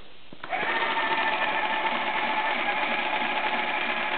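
Homemade TIM8 relay computer and its paper-tape reader starting up about half a second in and running steadily: a fast mechanical chatter with a constant whine, as it reads a memory test program from tape and loads and reads back each memory location without errors.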